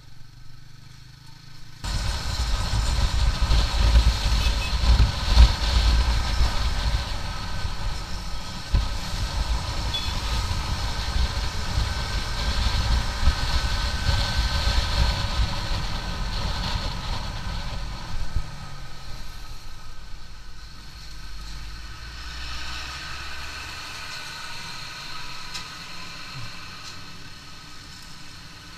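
Loud vehicle noise: a heavy rumble with several steady whining tones above it, starting suddenly about two seconds in and fading after about eighteen seconds to a lower steady hum.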